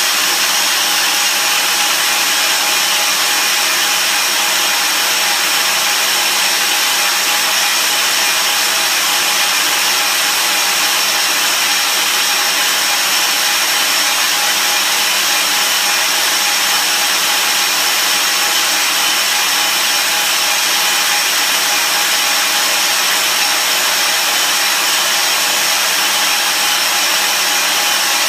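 KRAIS PanelMill-PF tube milling machine running steadily, its motor turning a head with three carbide inserts as it mills Inconel cladding off a 2.5-inch boiler tube. An even, unbroken whirring with a few steady tones.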